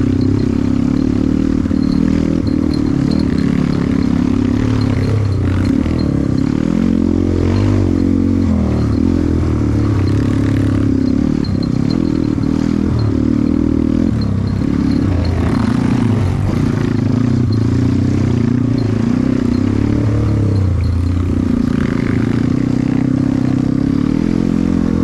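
Trail motorcycle engine running under load, its pitch rising and falling repeatedly as the throttle is opened and closed.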